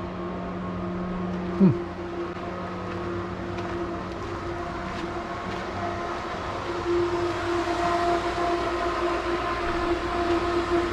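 Pool pumps and Trane air-conditioning condensers running, a steady machinery hum of several held tones; the lowest tone drops out about four seconds in. A short, loud falling squeak comes about a second and a half in.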